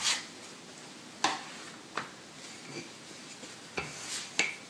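A few soft, scattered knocks and light rubbing as puff pastry is pressed and rolled out with a wooden rolling pin on a wooden cutting board.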